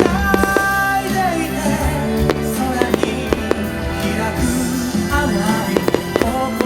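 A song plays over the venue sound system while firework shells burst in sharp bangs, in clusters near the start, a few seconds in, and again near the end.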